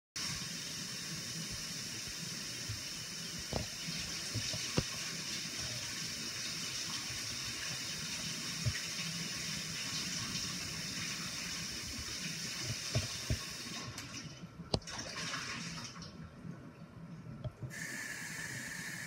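Kitchen tap running cold water into a bowl to cool a soft-boiled egg, a steady rush with a few light clinks. About fourteen seconds in the flow falters and drops away, then comes back near the end with a steady high note.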